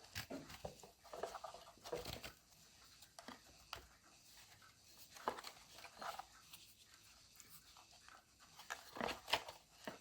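Faint handling sounds of a webbing strap being threaded and pulled through a 3D-printed PLA buckle: scattered rustles of the strap and light clicks of the plastic, busiest near the end.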